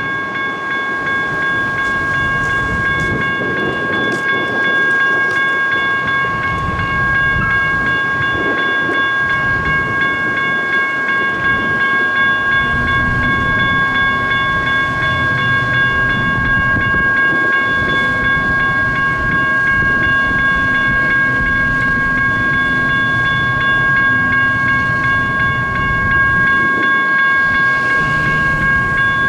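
Railroad crossing bell ringing continuously, a steady metallic tone. From about halfway through, the low rumble of a light rail train on the track rises beneath it.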